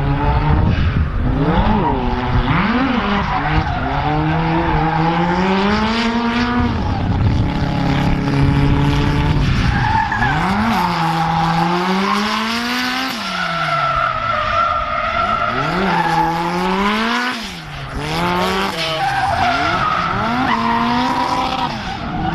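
LS V8-swapped Mazda RX-7 drifting: the engine revs rise and fall over and over with the throttle, over the hiss of the rear tyres sliding and smoking.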